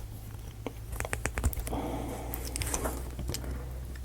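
Small wooden model-kit parts being handled and fitted together: a scatter of light clicks and taps, with a brief rubbing sound about two seconds in.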